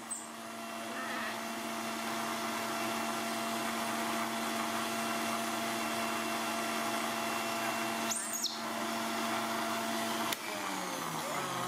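Electric countertop blender running steadily as it blends rambutan juice. About ten seconds in it is switched off, and the motor winds down with a falling pitch.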